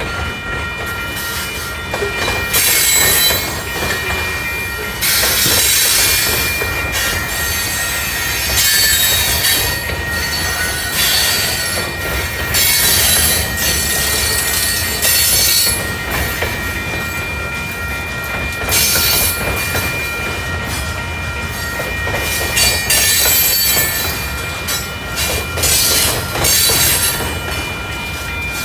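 Freight train of covered hopper cars rolling past close by: a steady low rumble of steel wheels on rail, swelling every two to three seconds into a loud hissing screech as each car's wheels go by. Thin steady high tones run underneath.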